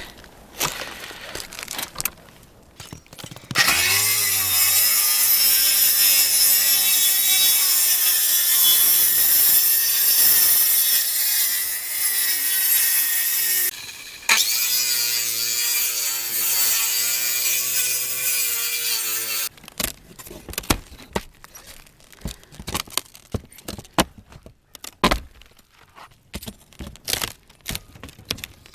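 A power saw cutting out rotten roof plywood decking: it spins up a few seconds in, runs through the wood, stops for a moment, then cuts again and shuts off. After that come scattered sharp knocks and scrapes.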